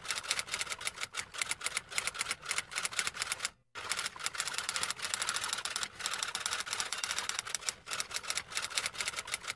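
Rapid typing clicks, a fast, uneven run of key strikes with one brief break about a third of the way through, laid over text being typed into a prompt box.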